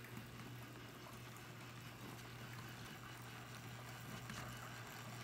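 Faint, steady trickle of water from the nativity scene's small water feature, with a low steady hum underneath.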